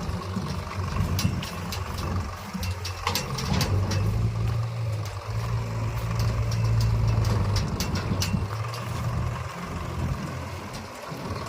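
Diesel engine of a JCB 3DX backhoe loader working, its drone swelling louder for a few seconds in the middle, with scattered clanks and knocks.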